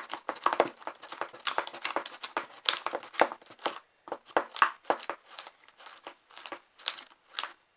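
Spoon stirring thick, sticky slime in a bowl: a quick, irregular run of squelching clicks and crackles as the activating slime thickens and turns stiff.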